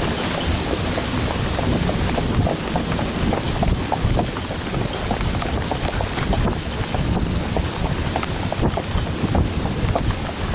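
Horses' hooves beating on a wet dirt trail in a quick, continuous run of strikes, under a steady rushing noise of wind and rain on the microphone.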